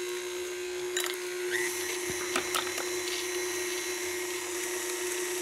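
Stand mixer with a paddle beater running steadily, creaming butter and sugar while eggs are added one at a time, with a few sharp clicks.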